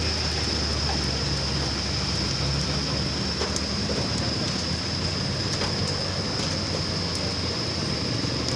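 Steady low engine rumble with a constant high-pitched whine over it, from a fire engine's pump feeding the hoses at a building fire, with scattered sharp cracks from the burning building.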